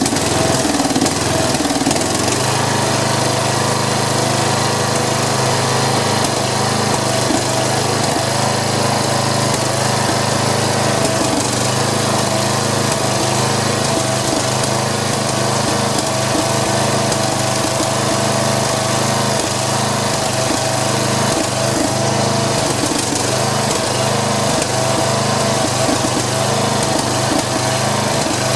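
Snapper SR1230 rear-engine riding mower's Briggs & Stratton engine running at a steady speed just after being restarted. The engine is being run on a new flywheel key to see whether the key shears again.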